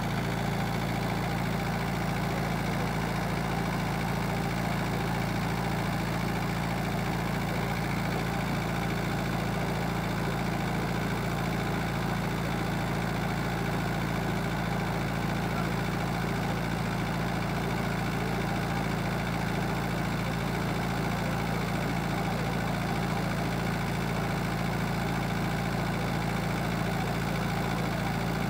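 Tractor engine running steadily at constant speed, driving a water pump through a large suction hose; an even low hum that doesn't change.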